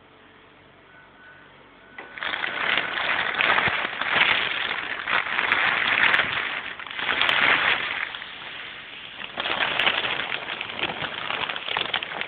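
Plastic wrapping sheet rustling and crinkling close to the microphone. It starts about two seconds in and comes in loud waves.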